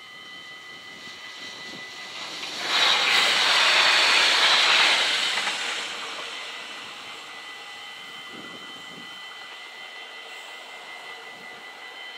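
Level-crossing warning bells ringing steadily while the barriers are down. A loud rushing noise swells about three seconds in and dies away by about six seconds.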